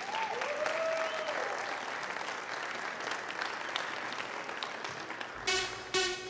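Audience applauding and cheering, with a few high whoops in the first second or so. About five seconds in, an electronic dance track starts with synth chords in short rhythmic stabs.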